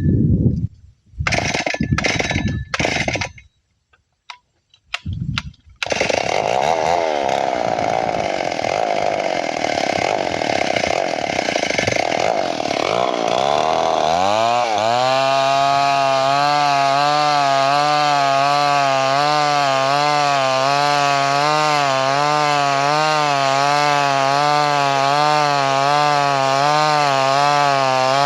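Chainsaw cutting wood. It comes in short loud bursts separated by gaps at first, then runs continuously from about six seconds in, settling about fourteen seconds in into a steady high-pitched run with a slight, even waver in pitch.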